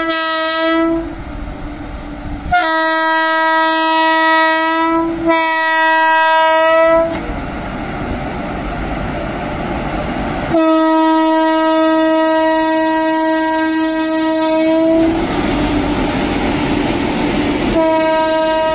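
Electric locomotive's horn sounding a series of long blasts, the longest about four seconds, as the train passes close by. Between the blasts the rumble and clatter of the locomotive and coaches rolling over the track.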